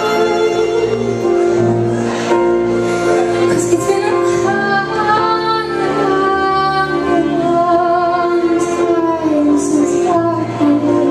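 Live band music with a woman singing, holding long notes that waver in pitch over steady instrumental chords.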